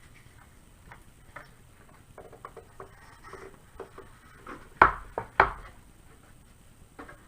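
Scattered light clicks and taps of hands handling the plastic shell of a Cube 3 3D printer, with two loud thumps in quick succession about five seconds in, as the printer is knocked or set down on the bench.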